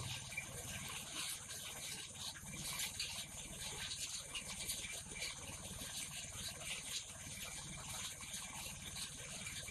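Mobile wood crusher running, driven by a single-cylinder diesel engine: a steady engine run with a fast pulsing under it, and a crackling hiss and rattle over it as material goes through the machine.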